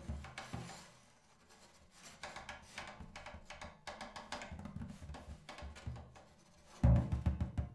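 Improvised playing on a Remo-headed drum with a stick: a few low hits, a short lull, then a run of light, rapid strokes on the head. Near the end comes a loud flurry of low drum hits.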